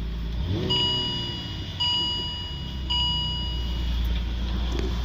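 Holden VE Commodore's dashboard warning chime sounding three times, about a second apart, over the low steady hum of the car's 3.6 V6 engine.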